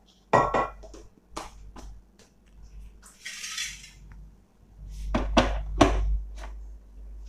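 Steel mixer-grinder jar and its plastic lid clattering and knocking as the jar is closed and set onto the mixer grinder's base: a string of sharp knocks, the loudest about a third of a second in and a cluster around five to six seconds, with a short scraping hiss about three seconds in.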